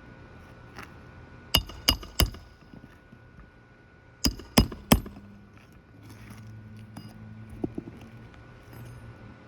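Hammer driving roofing nails into a shingle: two sets of three quick metallic strikes, the second set a couple of seconds after the first.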